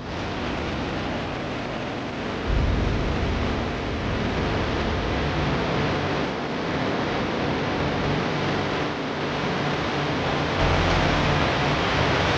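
Fast-flowing floodwater rushing steadily, a dense hiss with a low rumble underneath that grows louder about two and a half seconds in and again near the end.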